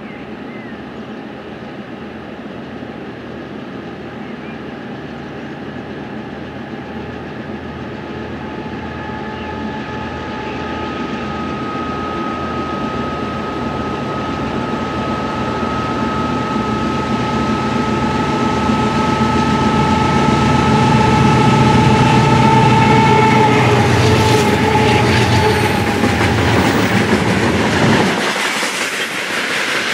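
Pair of GE C36-7i diesel-electric locomotives approaching and passing at the head of a freight train, their engines running under load with a steady high whine, growing louder until they pass about two-thirds of the way in. Tank wagons then roll by with a clickety-clack of wheels over the rail joints.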